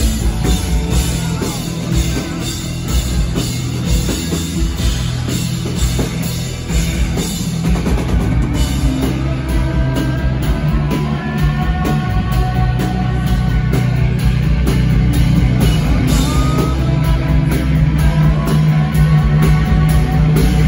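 Indie rock band playing live in a small club, heard from the audience: drum kit and electric guitars with bass. About halfway through, long held notes that bend in pitch rise over the band.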